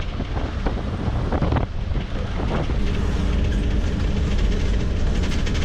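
Inside a moving bus: the engine gives a steady low rumble, with wind noise from the open windows and loose parts of the cabin rattling now and then.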